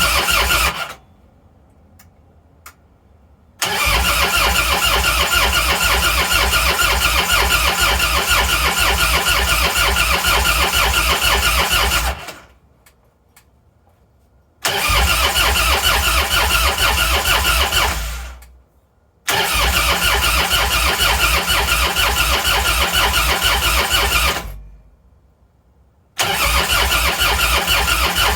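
Harley-Davidson V-twin's electric starter cranking the engine in four long tries of several seconds each, with short pauses between them, an even chugging pulse throughout. The engine does not catch: the bike won't start even on a new battery, with the choke pulled.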